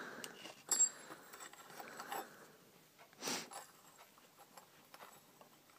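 Faint handling of metal crocodile clip leads being fitted onto the filament wires of a small fluorescent tube: a sharp click about a second in, scattered small ticks and rubbing, and a brief rustle a little past the middle.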